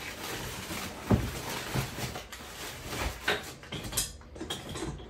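Crumpled packing paper rustling and crinkling as hands dig through a cardboard box, with a run of knocks and clatters from objects being moved inside it, the sharpest about a second in.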